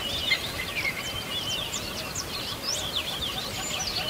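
Many birds chirping at once: a dense chorus of short, high chirps and quick pitch sweeps over a steady background hiss.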